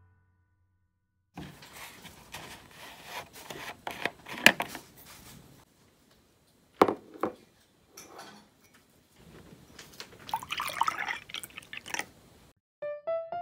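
Milk splashing and dripping in a glass cup as a cookie is handled in it, with a few sharp clinks and knocks.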